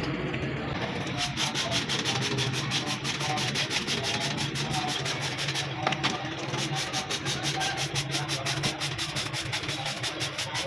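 Fast, even rhythmic scrubbing or rubbing, about seven strokes a second, starting about a second in and stopping near the end, over a steady low hum.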